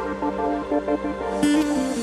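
Background music: an electronic synth melody of held, stepping notes.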